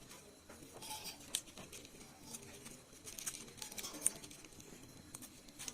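Xương sông leaves rustling and crackling faintly in short irregular bursts as the plant is handled and picked by hand.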